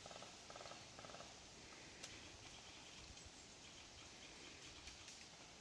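Near silence: faint outdoor background noise, with a few faint short pulsing sounds about half a second to a second in.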